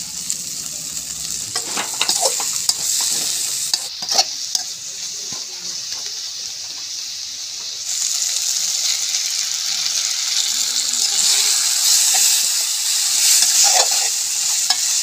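Spring onions and green chillies sizzling as they are stir-fried in hot oil in a stainless-steel wok, a metal slotted spatula scraping and clinking against the pan now and then. The sizzle gets louder about eight seconds in.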